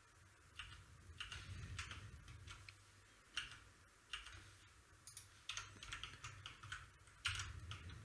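Faint, scattered clicks of computer keyboard keys and mouse buttons, a few at a time with short gaps, over a low steady hum.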